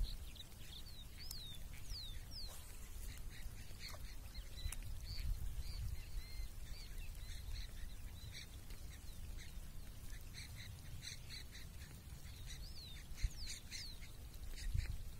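Several wild birds calling: short high whistles that slide down in pitch, and quick bursts of chirps about ten seconds in and near the end, over a faint steady low rumble.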